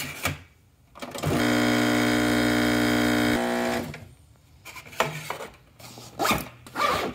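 Breville Café Roma espresso machine's pump buzzing steadily for about two seconds while brewing into a mug, then stopping. Near the end come rustles and clicks as a fabric backpack is opened.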